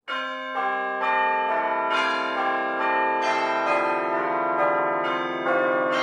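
Outro music of bell-like chimes: ringing pitched notes struck about twice a second, each sustaining and overlapping the next.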